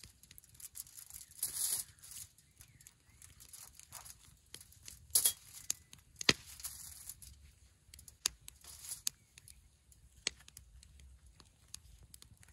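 A tomato being cut and hollowed out on a sheet of aluminium foil: the foil crinkles under the hands while a knife and spoon work the flesh, in short irregular rustles, scrapes and clicks.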